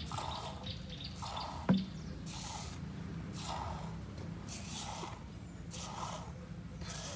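Hand-milking a cow: spurts of milk squirting into a plastic cup, about one a second. A single sharp knock comes about a second and a half in.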